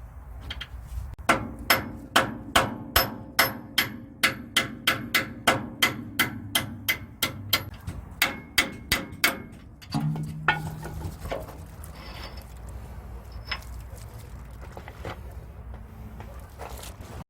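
A hammer striking metal in a steady run of blows, about three a second for some eight seconds, each with a slight ring, during spring and centre-bushing work on a dump truck's rear suspension. About ten seconds in the blows stop and a short low hum starts, followed by steadier mechanical noise.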